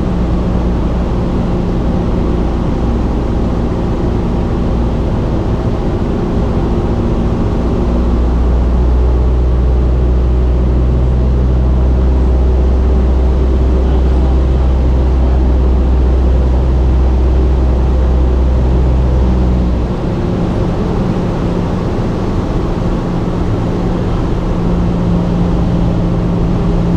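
Cessna 172's four-cylinder Lycoming engine and propeller droning steadily in cruise, heard inside the cabin. The engine note changes twice, swelling in its deepest part about eight seconds in and easing back about twenty seconds in.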